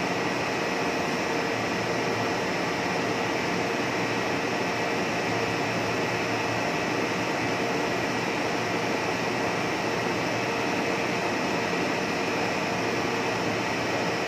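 Steady drone of a blown-film plastic extrusion line running, with a couple of constant hum tones over even machine noise and no change throughout.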